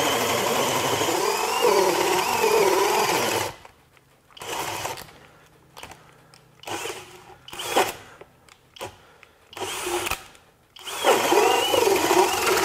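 Flex FX1271T 24V hammer drill boring a 2-9/16-inch self-feed bit through pressure-treated lumber in speed two, without turbo. It runs hard under heavy load for about three and a half seconds with its pitch wavering, then gives a string of short stop-start bursts before boring steadily again near the end. It is stalling in the cut: without turbo it can't drive the bit all the way through.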